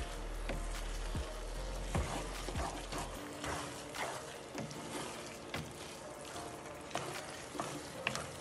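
A wooden spatula stirring and tossing spaghetti in sauce in a non-stick frying pan, with irregular clicks and scrapes against the pan over the sizzle of the sauce cooking on the heat.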